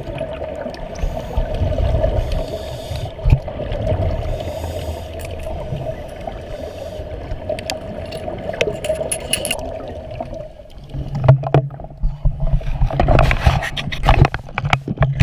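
Muffled underwater sound heard through a GoPro's waterproof housing: a low rumble with a steady hum and scattered bubbly crackles. About eleven seconds in, the sound changes to splashing and a lower steady hum as the camera rises toward the surface.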